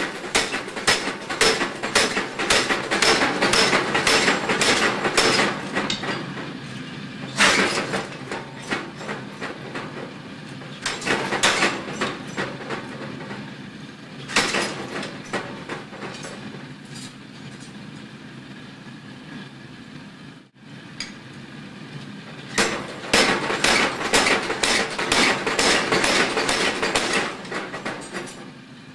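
Blacksmith's hammer striking steel on an anvil: a steady run of blows, a few single blows, a pause, then another run of blows near the end.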